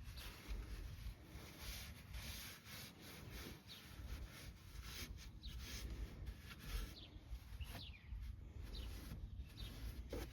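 Faint rubbing and wiping of a cloth towel over truck surfaces, in short uneven strokes, with a few brief high chirps.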